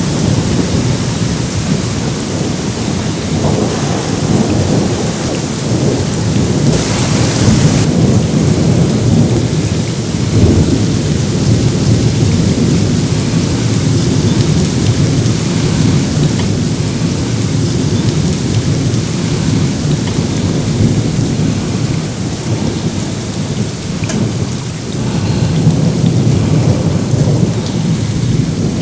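Thunder rumbling almost continuously over torrential rain. The hiss of the rain swells briefly about seven seconds in.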